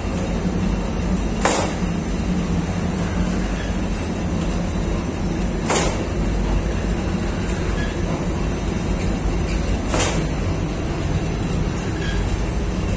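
Lavash dough sheeting machine running with a steady low rumble and hum. Three sharp clicks come at an even pace, about four seconds apart.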